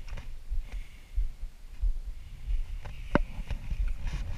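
Irregular low thumps and rumbling on an action camera's microphone, from wind buffeting and the camera being carried, with a sharp click about three seconds in.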